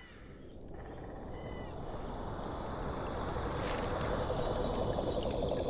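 Night-forest ambience on a film soundtrack, swelling steadily louder, with a fast pulsing trill coming in about halfway and a few faint steady high tones above it.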